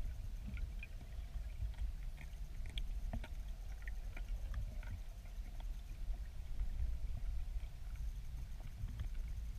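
River water flowing, heard underwater through a submerged camera: a steady low rumble with a scattering of small clicks and ticks.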